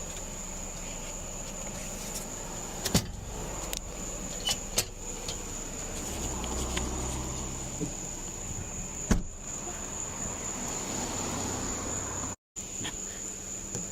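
Steady high-pitched insect drone, like crickets, with a few sharp clicks and knocks scattered through. A car engine hum swells and fades in the middle.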